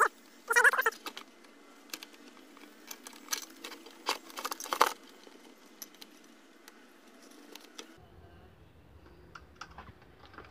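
Light clicks and scrapes of a small screwdriver working against the air fryer's plastic housing and wiring, in scattered bursts for about the first five seconds, then only faint ticks.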